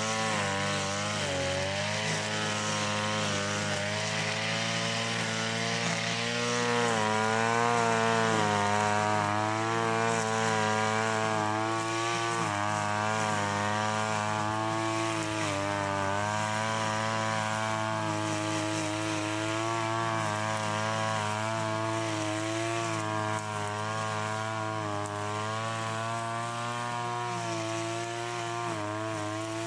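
Stihl FS 90 AV brushcutter engine running while cutting grass, its revs rising and falling as the throttle is worked.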